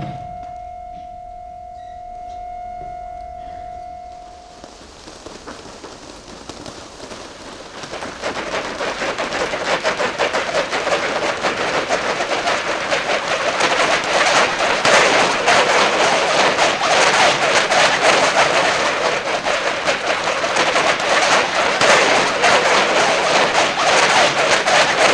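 A steady ringing tone that stops about four and a half seconds in. Then a dense rattling rustle of corrugated plastic tubes moving across the stage floor, growing louder about eight seconds in and staying loud.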